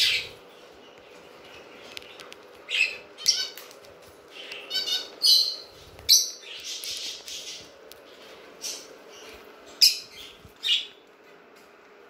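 Pet zebra finches calling: short nasal chirps in scattered bursts, some in quick pairs, over a faint steady hum.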